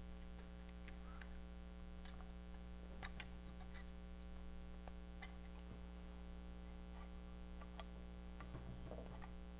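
Faint, scattered clicks and taps as the small oil cover is fitted back onto the bearing assembly of a Bell & Gossett Series 100 circulator pump by hand, over a steady electrical hum.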